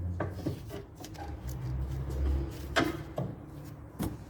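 Steering tie-rod end being fitted to the front suspension by hand. A low rumble runs under the first half, then a few sharp metallic knocks and clicks: one about three seconds in, a lighter one soon after, and a sharp one near the end.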